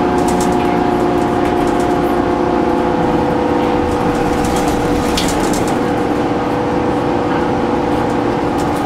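Interior sound of a Gillig Advantage transit bus under way: its Cummins ISM diesel engine and Voith D864.5 automatic transmission running with a steady whine over road rumble. A few light rattles are heard from the cabin.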